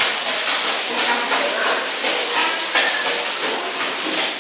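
Steady rushing hiss of churning pool water, with splashing and dripping as a wet dog climbs out of the pool up a ramp.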